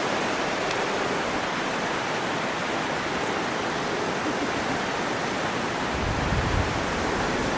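Steady rushing of water and wind. From about six seconds in, wind buffets the microphone in low gusts.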